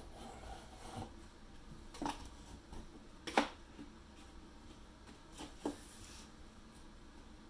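A metal 6-in-1 painter's tool prying and scraping at the edge of an old, damaged window sill: a few scattered clicks and taps, the loudest about three and a half seconds in, and a brief scrape near the six-second mark.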